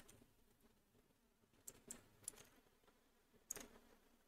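Faint computer keyboard typing: a few scattered keystrokes, a small group about two seconds in and a sharper pair about three and a half seconds in.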